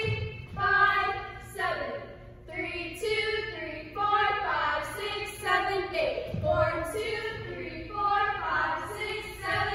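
Female voices singing a melody in held notes, one note after another.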